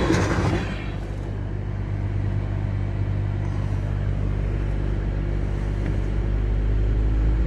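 The last of a freight train's cars rolling past, dying away within the first second, then a steady low engine hum of an idling motor vehicle.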